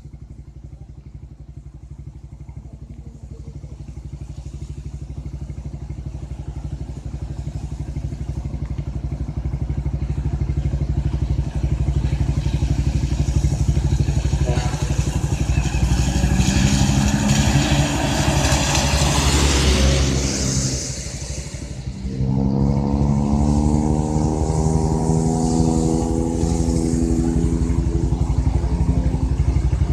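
Heavy lorry's diesel engine pulling uphill. It grows louder and rises in pitch, dips briefly about two-thirds of the way through, then runs on at a steady, laboured pitch.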